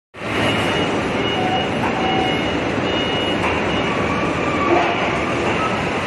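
Steady industrial roar from a running tilting rotary aluminium-melting furnace and a forklift working at its mouth, with a few faint thin squeals here and there.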